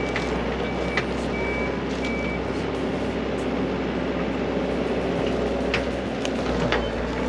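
Excavator's diesel engine running steadily, its motion alarm beeping about once every 0.7 seconds for the first two and a half seconds and then stopping. A few light clicks sound over the engine later on.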